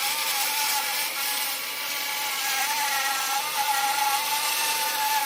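Powered saw running through wood, a steady high whine that wavers slightly in pitch, over a loud hiss.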